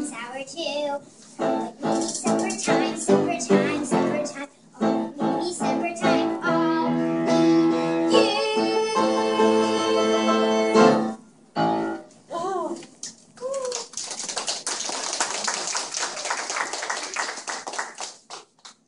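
Music with a pitched melody plays for about the first eleven seconds, then stops; a few short sliding voice sounds follow. For the last few seconds, a small audience claps.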